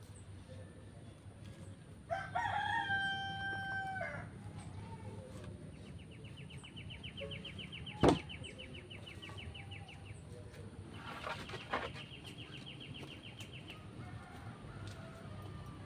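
A rooster crows once, about two seconds in, for about two seconds. A rapid high trill follows twice. Partway through, a single sharp knock of wood on wood is heard as a pole is handled against the posts.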